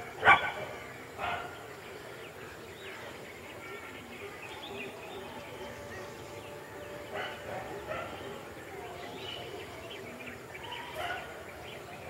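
A dog barks twice in the first second and a half, short and loud, then a low ambient background with faint scattered bird chirps.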